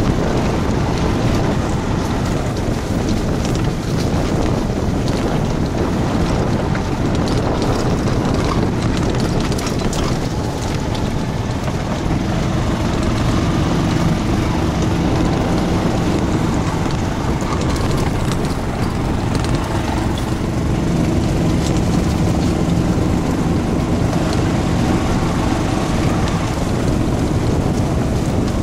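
Golf cart running at speed, with wind buffeting the microphone over a steady low rumble. A faint steady hum joins in during the second half.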